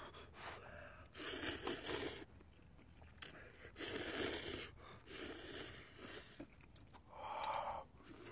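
Noodles being slurped up from a pot of crab broth: three long slurps and a shorter one, then a brief voiced sound from the eater near the end.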